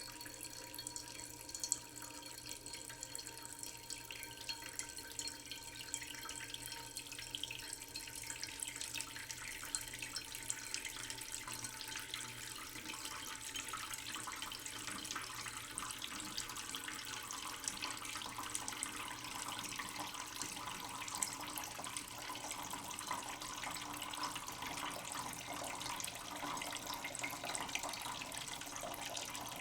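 Water running from a tap into a sink, a steady splashing hiss that grows a little fuller and louder partway through.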